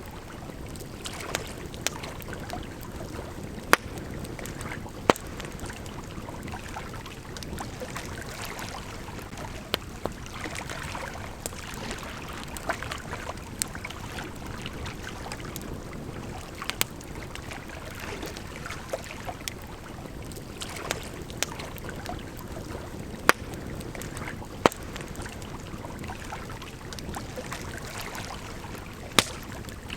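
Campfire crackling with frequent sharp pops, a handful much louder than the rest, over the steady rush of a gently flowing river.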